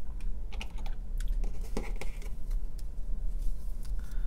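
Stack of trading cards being handled and shuffled in the hands: a few scattered light clicks and soft rustles of card stock, over a steady low hum.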